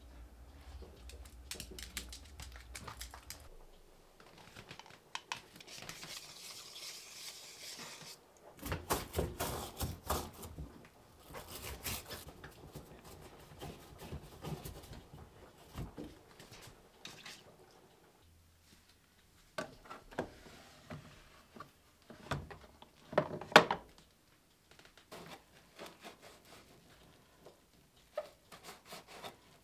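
Hands cleaning a Whirlpool front-load washing machine: a sponge or cloth rubbing and wiping around the door seal and the detergent drawer recess, with scattered clicks, knocks and rustles against the machine's plastic. The loudest is a sharp knock a little past two-thirds of the way through.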